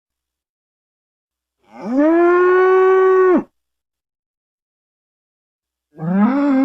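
Cattle mooing: one long moo about two seconds in, rising in pitch at the start, then held steady and dropping as it ends, followed near the end by the start of a second, rising moo. The calls are separated by dead silence.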